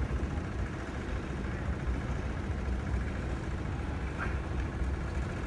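Steady low outdoor rumble with no clear single source, and a brief faint high chirp about four seconds in.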